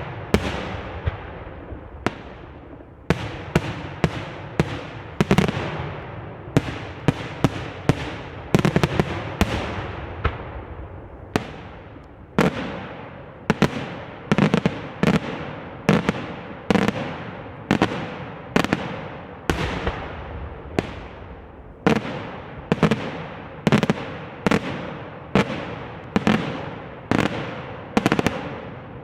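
Fireworks display: one sharp bang after another, each followed by an echoing tail, packed closely together at first and then coming steadily about once a second.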